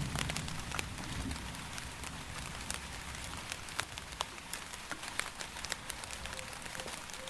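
Steady rain with many distinct drops ticking close by. The low rumble of thunder dies away over the first second or so.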